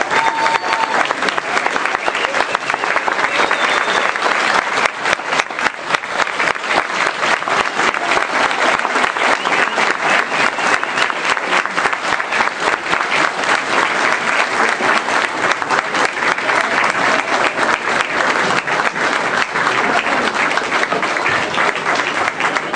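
Audience applauding: dense, steady clapping from many hands, an ovation that runs on without a break.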